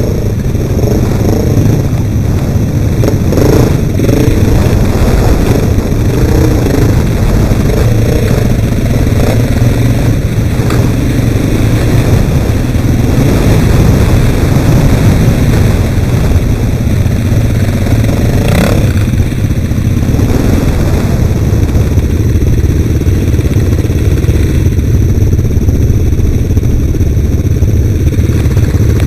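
ATV engines running and revving under way, pitch rising and falling in the first third and steadier after. A single sharp knock about two-thirds of the way through.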